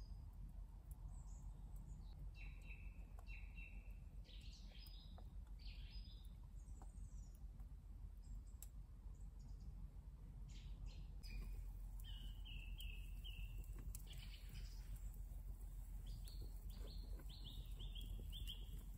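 Songbirds chirping, faint short high notes coming in runs of two to five, with scattered faint crackles from a small wood fire over a steady low background hiss.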